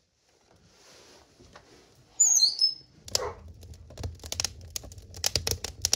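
Kindling crackling and popping as it catches in a wood stove's firebox, a dense run of sharp irregular snaps over a low steady rumble, starting about halfway. Just before it, a brief high chirping squeak with a falling glide is the loudest sound.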